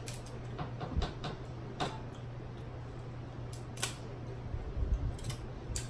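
Crab and shrimp shells being cracked and peeled apart by hand, heard as irregular small sharp clicks and cracks with a few soft thumps.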